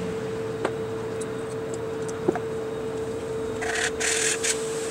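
A valve being hand-lapped into a Malibu engine's cylinder head: a suction-cup lapping stick spun between the palms grinds the valve against its seat with lapping compound to form the sealing surface. There are two light taps early on, then gritty scraping strokes about three and a half seconds in, over a steady hum.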